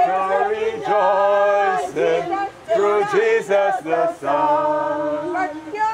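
Unaccompanied hymn singing by a small group, a man's voice the strongest, with long held notes.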